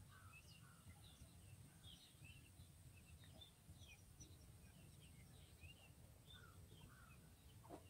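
Faint outdoor ambience of small birds chirping, many short overlapping calls throughout, over a low steady rumble.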